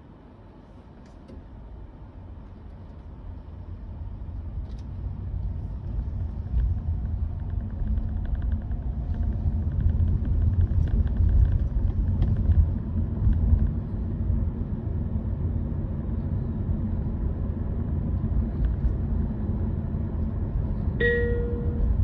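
Low road and tyre rumble inside the cabin of a Honda Vezel e:HEV hybrid while driving. It grows louder over the first ten seconds or so and then holds steady. A short electronic tone sounds near the end.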